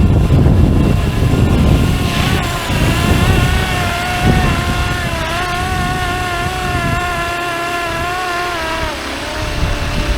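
Fly-Wing MH-60R SeaHawk 470-class RC helicopter's electric motor and rotors whining in flight: a steady high whine that wavers slightly and drops in pitch near the end. Wind buffets the microphone in the first two seconds.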